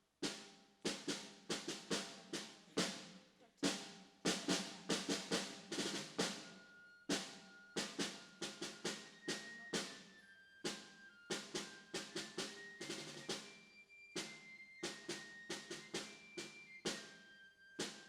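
Drum playing: a dense, uneven run of sharp strikes, each ringing briefly, starting out of silence.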